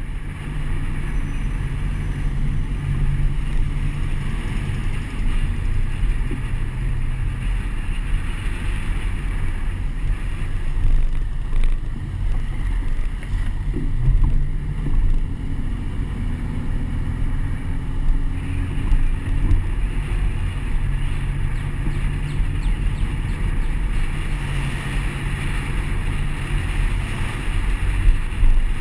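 A car driving, heard from a camera mounted on its outside: a steady low rumble of engine and tyres, with wind rushing over the camera.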